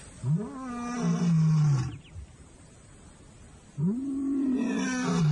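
Male African lion roaring twice: two long roars, each rising at the start and then sliding lower in pitch. It is a territorial roar, proclaiming the pride's new males to the surrounding area.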